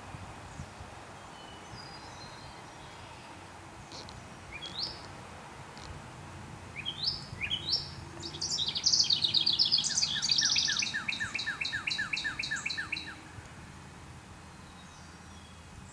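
A songbird singing: a few short rising notes, then a fast trill of repeated notes lasting about four seconds, over faint outdoor background noise.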